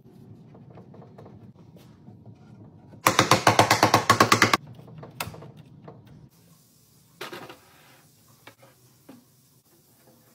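A ratcheting mechanism clicking rapidly, about ten clicks a second for about a second and a half, as a clamp is tightened on a glue-up. A few faint knocks follow.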